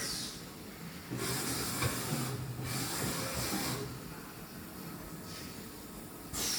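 Dahlih MCV CNC vertical machining center running, with a low machine hum and several bursts of hissing lasting about a second each.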